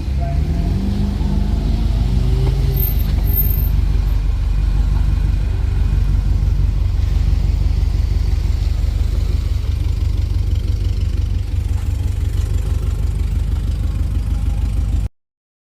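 2007 Subaru Forester's flat-four engine running with a steady deep rumble, its pitch rising briefly in the first couple of seconds as it is revved. It cuts off suddenly near the end.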